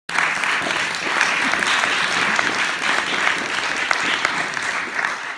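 Audience applauding, a steady patter of many hands clapping that starts to die away at the very end.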